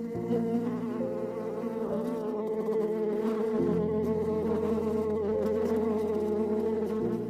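Flying insects buzzing: several overlapping steady drones that shift in pitch a few times.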